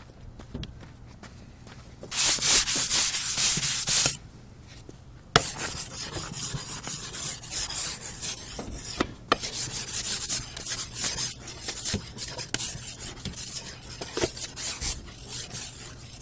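Frost and snow being scraped off a car window's glass: a dense scraping stretch of about two seconds, a short pause, then about ten seconds of quick, repeated scraping strokes.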